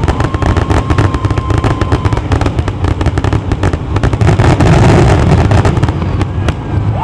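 Fireworks finale barrage: a dense, rapid volley of bangs and crackling over a continuous low rumble, with a thin steady whistling tone in the first two seconds. The bangs thin out near the end as the barrage finishes.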